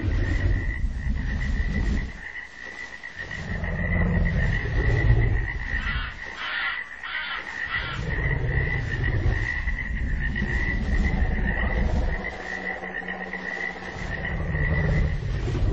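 Deep creature growls in long swells of two to four seconds, over a steady high trill that runs throughout. Three short, higher rasps come about six to seven seconds in.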